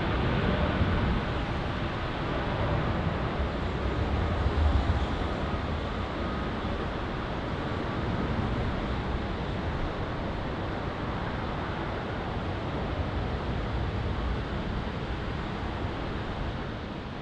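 Boeing 787-8's twin jet engines at takeoff thrust: a steady deep roar as the airliner lifts off a wet runway and climbs away, easing slightly near the end.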